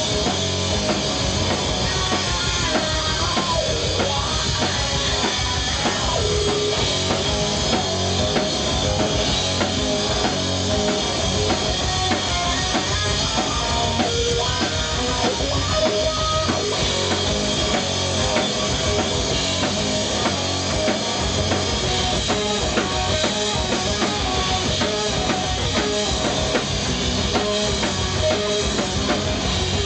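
Live rock band playing at full volume: electric guitar, bass and a drum kit with a steady kick-drum beat.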